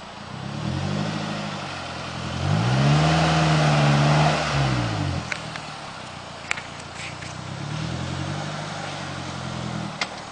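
Suzuki Jimny JB43's 1.3-litre four-cylinder petrol engine revving up and dropping back three times as the 4x4 works its way through a steep ditch, the middle rev the longest and loudest. A few sharp clicks come in the second half.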